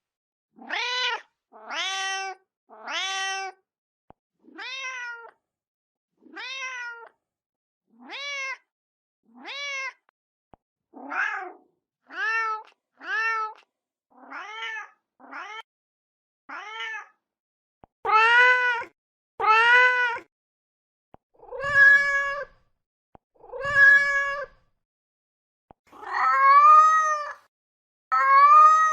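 A domestic cat's meows, repeated over and over with short silent gaps, roughly one every second or two. These are a mother cat's calls for her kittens. The meows grow louder and longer in the second half.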